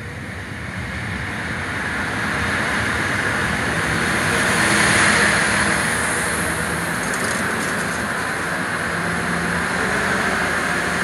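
Northern Ireland Railways CAF diesel multiple unit running into the platform and passing close by: wheels on rail and engine noise growing louder, loudest about five seconds in, then holding steady as the coaches go past.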